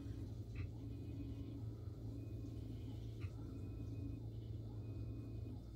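Steady low background hum, with faint soft ticks about half a second in and again a little past three seconds.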